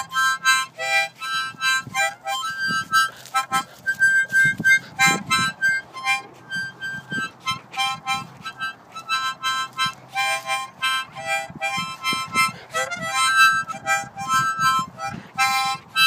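Hand-held harmonica played in short, choppy chords and notes. It keeps switching back and forth between a lower and a higher group of notes.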